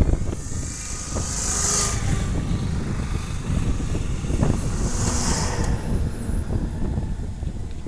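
Traffic passing on a highway: a steady low rumble, with two brief high tyre hisses that swell and fade, about one and a half and five seconds in.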